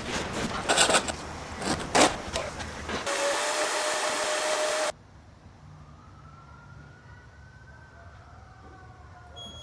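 A few scraping strokes, then a shop vacuum running with a steady whine and hiss for about two seconds, cutting off suddenly. After it only a faint hum remains.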